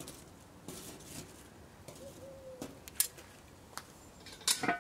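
Metal tongs clicking as charcoal briquettes are set down on a hard surface: a few short sharp clicks, the loudest near the end.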